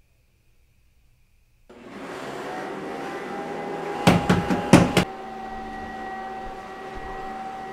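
A steady machine-like drone with a held whine starts abruptly about two seconds in and keeps going. Around the middle, a fist bangs on the wall five or six times in two quick groups.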